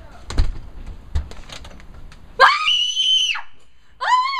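A girl screaming in fright: two high-pitched screams, the first held about a second, the second starting near the end. A couple of dull thumps come before them.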